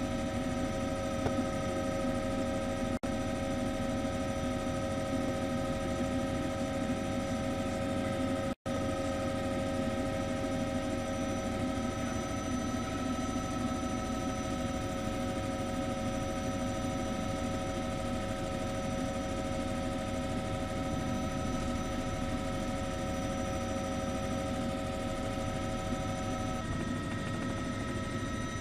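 A steady mechanical drone with several constant whining tones over a low rumble, unchanging in pitch. It cuts out for an instant about 3 and 8.5 seconds in, and the tones shift slightly near the end.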